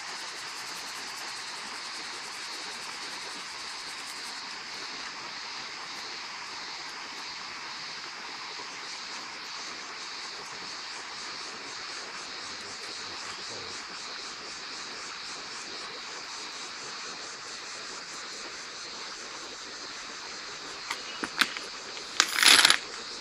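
Steady chorus of crickets chirping. Near the end come a few sharp knocks and then a short, loud clatter as stones are handled at the fire.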